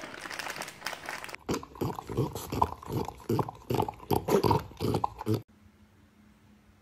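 A French bulldog and a cat eating from a small cup held out by hand: quick rhythmic eating and breathing noises, about three a second, starting about a second and a half in and cutting off suddenly about five and a half seconds in.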